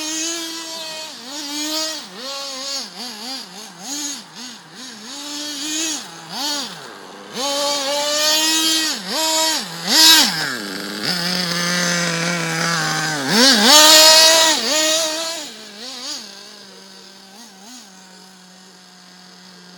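Nitro engine of a 1/8-scale XTM two-speed RC buggy, revving up and falling off again and again as it is driven in bursts. In the last few seconds it settles to a steady, much quieter note.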